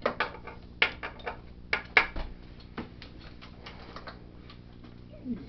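Socket ratchet clicking in short, irregular runs as a bolt is worked loose on the mower's bracket. The clicks are sharpest in the first three seconds and fade to faint ticks after that.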